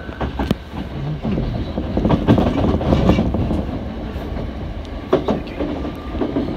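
Hankyu 7000-series train heard from inside the carriage as it pulls away and gathers speed. The running rumble grows louder after about a second, with the wheels clacking sharply over rail joints several times.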